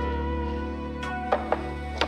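Instrumental music with held notes over a steady bass, carrying on from the opening titles into the scene. Two or three short light knocks come about a second in.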